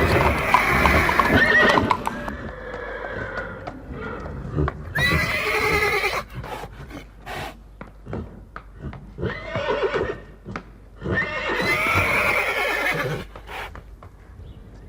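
Horse neighing four times: long whinnies that waver in pitch, near the start, about five seconds in, around ten seconds and from about eleven to thirteen seconds. Scattered clops of hooves fall between the calls.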